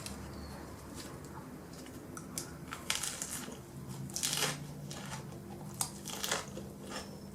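Quiet rustling and crinkling of packaging with scattered small clicks, over a faint low hum.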